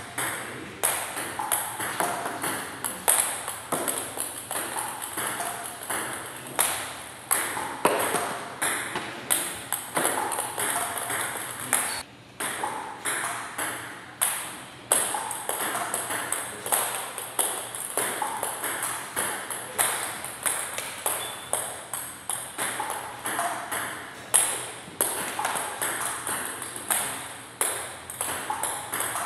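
Table tennis ball clicking rapidly back and forth, bouncing on the table and struck by the paddles in a continuous rally, several hits a second, with one short break partway through.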